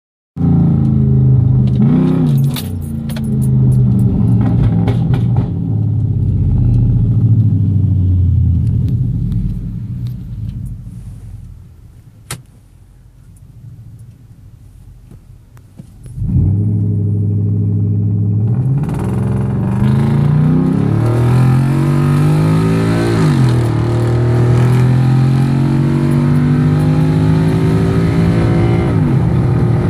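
A Ford F-150 with cat-delete true dual 3-inch exhaust, Flowmaster Super 10 mufflers and an MPT tune, heard from inside the cab under hard acceleration. The exhaust note climbs in pitch and drops back at each upshift. It eases off and falls quiet from about ten seconds in, then a second hard pull starts about sixteen seconds in and climbs through several more upshifts.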